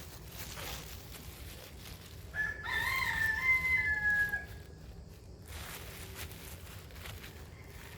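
A rooster crowing once, about two and a half seconds in, in a single call of roughly two seconds that rises and then holds before trailing off.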